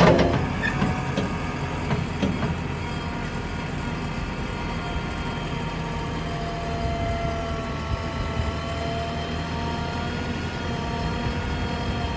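JCB 3DX backhoe loader's diesel engine running steadily with a high whine over it. A loud clank comes right at the start, then a few lighter knocks over the next two seconds.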